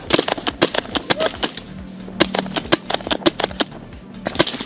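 Airsoft guns firing: a rapid, irregular string of sharp cracks from several guns, thinning out after about two seconds, then a short flurry near the end.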